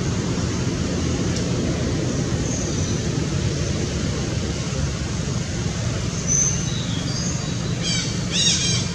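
Steady low background rumble. Near the end a few short, high-pitched squeaky calls come in, ending in two louder squealing calls.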